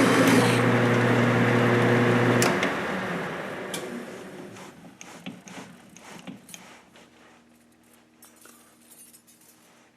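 Metal lathe running under power through a cut with a high-speed steel turning tool, its steady motor hum stopping about two and a half seconds in as the machine is shut off and spins down, followed by a few light clicks and rattles.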